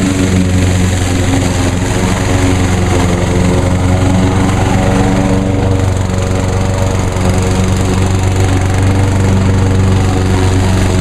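Craftsman walk-behind lawn mower's single-cylinder four-stroke engine running steadily while mowing grass.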